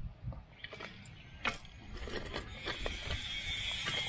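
Scattered scrapes and clicks of soil being worked in a planting hole, then a steady high buzz sets in about two and a half seconds in.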